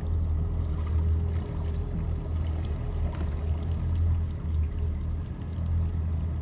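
Twin Mercury Verado 300 V8 outboards idling as the boat creeps along at low speed, a steady low rumble, with water sloshing along the hull.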